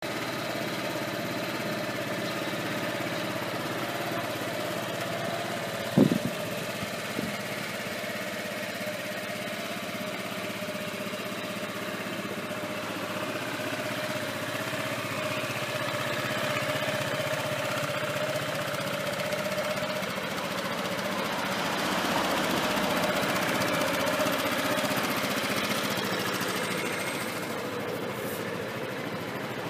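1999 Yamaha Majesty 250 scooter's single-cylinder four-stroke engine idling steadily, its exhaust note heard throughout. A sharp knock comes about six seconds in and a smaller one a second later.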